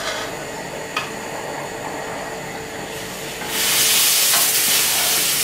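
Sugar-and-cocoa chocolate mixture sizzling in a saucepan on a gas burner as it cooks down, with a click at the start and another about a second later. About three and a half seconds in, a much louder hiss surges up and holds; she believes the mixture is starting to burn.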